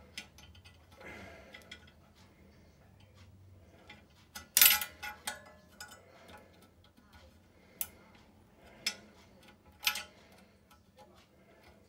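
Small clicks and taps of hard plastic model parts and a small screwdriver being handled while a screw is worked into a plastic model truck cab, with a louder clatter of clicks about four and a half seconds in and single sharp clicks near the end.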